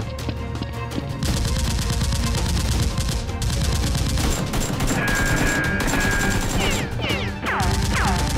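Dubbed-in automatic gunfire sound effects, a rapid unbroken stream of shots starting about a second in, over background music. A few quick falling whistles come near the end.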